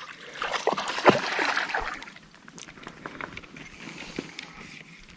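Water splashing and sloshing in a shallow river, loudest about a second in, then settling to quieter sloshing and small ticks.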